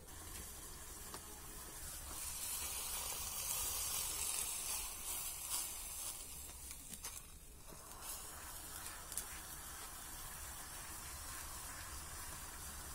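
Sizzling and hissing from a small metal cup of steaming liquid heated over an open wood fire, a little louder for a few seconds near the start, with a few faint crackles.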